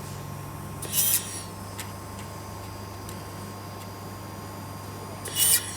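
Laser welder firing two short bursts on stainless steel, about four seconds apart, each a brief sharp hiss over a steady machine hum.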